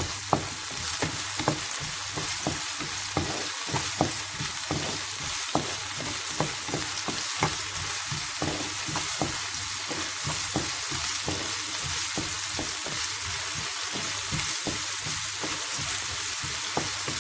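Chopped onions and carrots sizzling in hot oil in a kadai, a steady hiss, as they are stirred, with irregular clicks and scrapes of the utensil against the pan about every half second. The onions are at the stage of turning golden.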